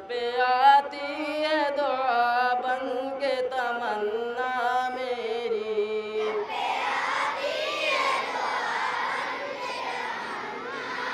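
A boy's voice chanting a melodic assembly prayer into a microphone, holding long notes. About six and a half seconds in, a large group of students takes up the chant together.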